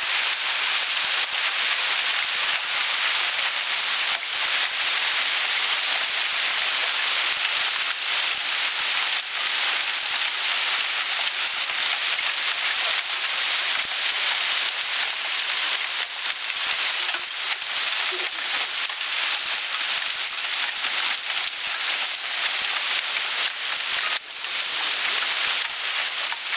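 Heavy downpour with hail: a dense, steady hiss of rain pounding on the street and ground, with many sharp hailstone hits mixed in.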